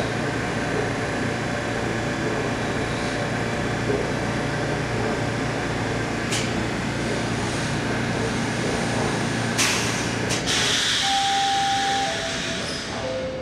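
TTC Bombardier T1 subway train standing at the platform with a steady hum of its equipment. About ten seconds in come a couple of sharp clicks and a hiss of air, then the door-closing chime: steady tones stepping down in pitch.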